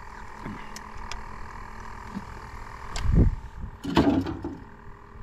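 Handling noises around a landing net holding crappie: a few light clicks, a low thump about three seconds in and a short rustling scuff about a second later, over a faint steady hum.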